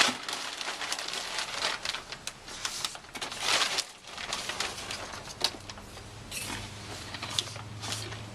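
Rustling, crinkling and small knocks of objects being handled and rummaged through, with a low steady hum coming in about two-thirds of the way through.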